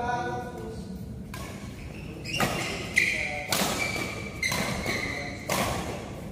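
Badminton rally: rackets striking the shuttlecock in sharp hits, about one a second, with voices on court.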